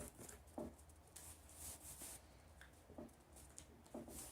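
Faint rustling of paper and a few soft taps as paper cut-outs are handled and pressed down while gluing.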